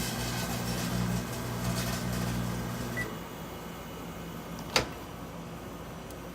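Microwave oven running with a steady electrical hum and crackling from aluminium wire arcing inside. The hum drops off about three seconds in, and a single sharp click follows near the end.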